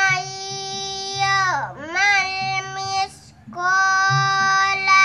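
A young girl's high voice chanting Quran recitation in long, held melodic phrases. Her pitch dips low between the first two phrases, and she takes a short breath about three seconds in before going on.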